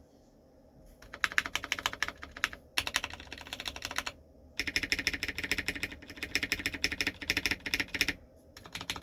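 Leopold FC750R mechanical keyboard being typed on fast: rapid runs of key clacks. They start about a second in, with two brief pauses, one around four seconds and one around eight.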